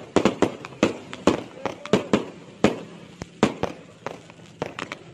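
Aerial fireworks bursting in quick, irregular succession: a string of sharp bangs, several a second, thinning out towards the end.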